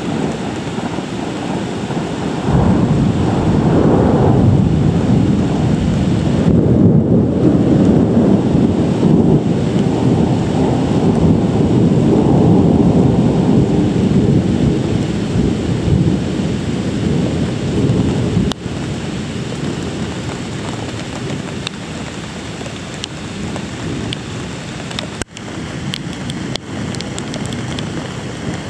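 Thunder rolling in a long, low rumble over steady rain. The rumble swells a couple of seconds in, holds for about fifteen seconds, then dies away, leaving the rain hiss.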